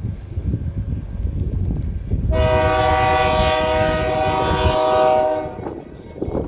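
Diesel freight locomotive's air horn sounding one long, steady chord of several notes, starting a little over two seconds in and lasting about three seconds, over a low rumble.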